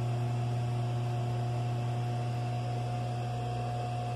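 A steady low electrical hum with a fainter, higher steady tone above it, unchanging throughout.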